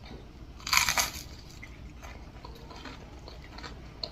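A loud crunchy bite into crisp fried food just under a second in, followed by quieter crunching and chewing close to the microphone.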